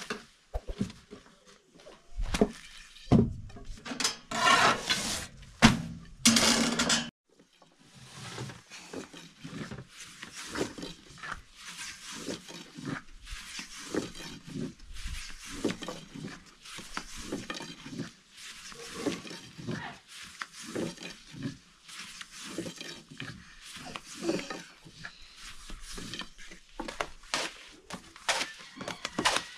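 Thin wooden rolling pin knocking and rolling against a wooden board as lavash dough is rolled out and flipped: a steady run of light taps and knocks, louder and heavier in the first several seconds.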